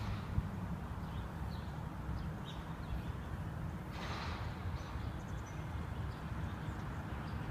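Outdoor ambience: a steady low rumble with a few faint, short chirps, and a brief rustling swish about four seconds in.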